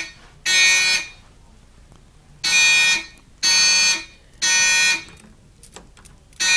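Fire alarm sounder going off loudly in the code-3 (temporal-three) evacuation pattern. One buzzing half-second beep sounds, then a pause of about a second and a half, then three more beeps half a second apart, and the next group starts near the end.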